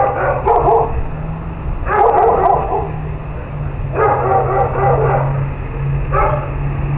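A dog barking in short clusters of a few barks each, about every two seconds, over a steady low rumble.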